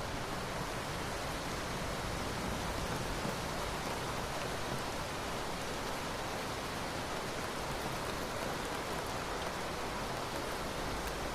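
Steady rain falling, an even hiss with no change through the stretch.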